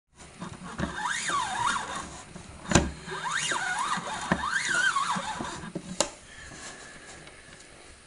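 Casdon toy Hoover Electron 1100 washing machine running, its small motor turning the drum with a squeal that wavers up and down three times and two sharp knocks; near the end only a faint steady whine remains.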